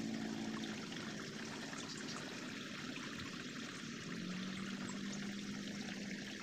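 Steady rush of flowing water, with a faint low steady hum that fades out about a second in and returns about four seconds in.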